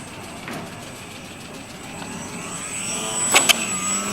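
Aircraft engine noise growing steadily louder, with two sharp knocks a little over three seconds in.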